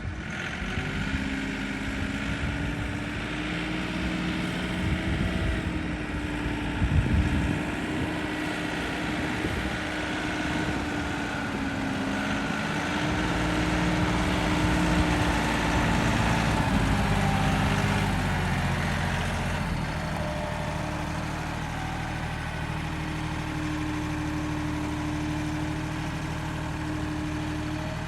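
A machine's engine running steadily, its speed rising and falling under changing load, then holding a more even pitch from about two-thirds of the way through.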